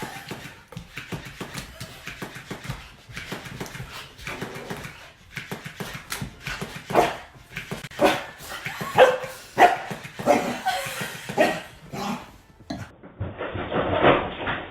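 A dog barking repeatedly, in short sharp barks and yips that come thick and fast, loudest in the middle stretch.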